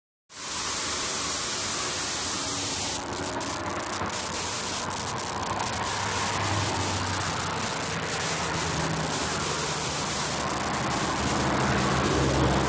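Steady loud hissing noise, crackling from about three seconds in, with a vehicle's low engine hum coming up near the end.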